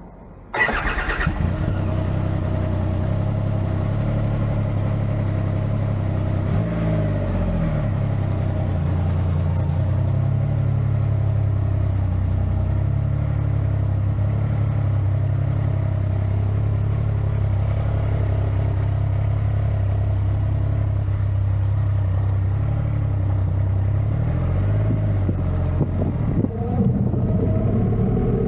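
Triumph Rocket 3R's 2.5-litre three-cylinder engine starting about half a second in, then idling steadily, heard close up from a camera on the rear swingarm. Near the end the engine note rises as the bike pulls away.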